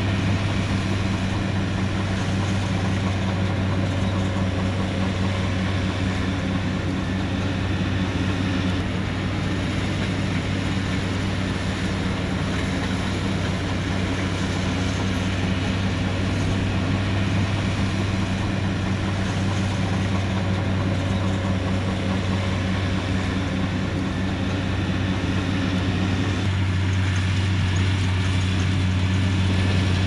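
Tractor's diesel engine running with a steady low drone as it pulls a Vermeer round baler through windrowed hay. The tone shifts a little about nine seconds in and again near the end.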